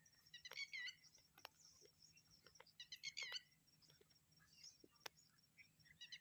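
Faint bird calls: two short bursts of quick, high chirping notes, about half a second in and again about three seconds in, with a few soft clicks between.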